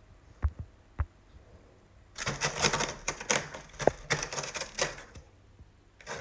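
A few soft knocks, then packing paper crinkling and rustling in a dense crackling run for about three seconds.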